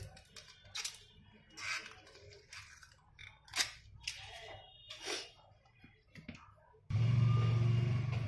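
Thin plastic protective film on a replacement phone touch glass crinkling as it is peeled and handled, in short separate rustles with one sharp click about three and a half seconds in. Near the end a loud steady low hum with hiss starts abruptly.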